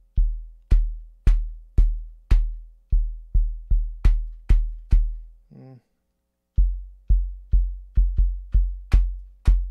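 Akai Rhythm Wolf's analog kick drum voice playing a sequenced pattern: deep, quickly decaying thumps, each with a sharp click at the front, about two a second, some hits louder than others. The pattern stops for about a second and a half a little past the middle, then resumes.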